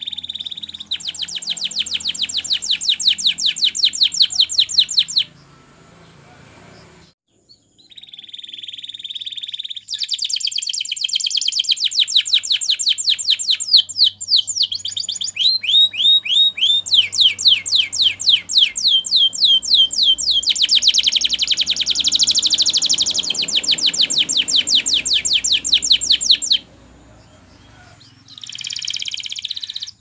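Canary singing in long, rapid trills of repeated high notes, with a short held note and a run of slower falling notes in the middle, and two short pauses between phrases.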